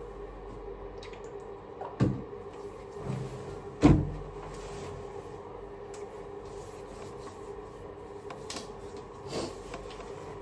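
Two sharp knocks about two seconds apart, the second the louder, over a steady low hum, with a few lighter clicks and knocks later on.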